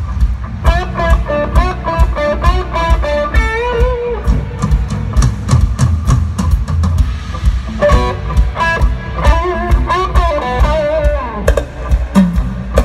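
Rock band playing live through an arena PA: electric guitars, bass and a drum kit, with a wavering melodic line in two long phrases over a loud, heavy low end as heard from the crowd.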